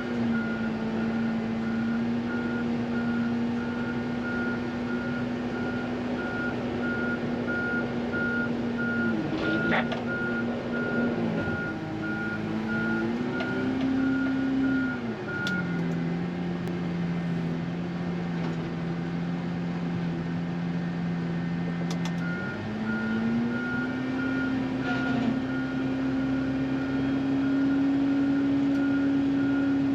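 Wheel loader plowing snow: its diesel engine runs steadily while the backup alarm beeps in a regular pulse. About halfway through the beeping stops and the engine drops in pitch for several seconds, then the beeping resumes and the engine rises again. A single clank comes about ten seconds in.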